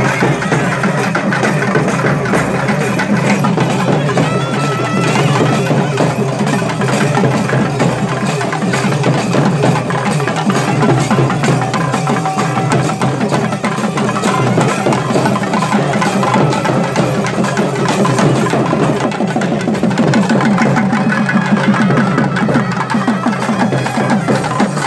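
Loud festival drum music, a fast, steady percussion beat that runs without a break.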